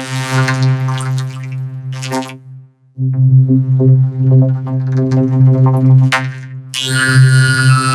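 A cartoon shout distorted by audio effects into a synthesizer-like electronic drone: a steady, buzzing low tone with many overtones. It breaks off for a moment about two and a half seconds in, then resumes, and a hissy layer joins near the end.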